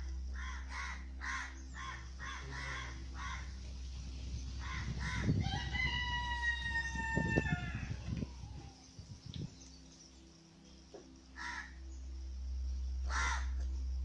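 A rooster crowing once, a single drawn-out crow of about two and a half seconds that drops a little at the end, starting about five seconds in over a low rumble. Short bird calls repeat about twice a second in the first few seconds, and two more come near the end.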